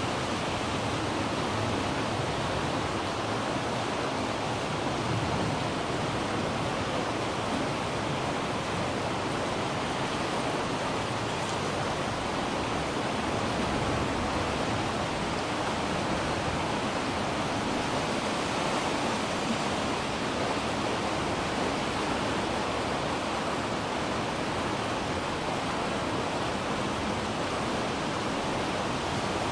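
Steady rushing of floodwater in a creek just starting to flood.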